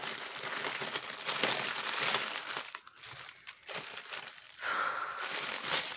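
Clear plastic wrapping crinkling as it is unrolled and pulled open around a bundle of small bags of diamond painting drills. It comes in bursts with short pauses.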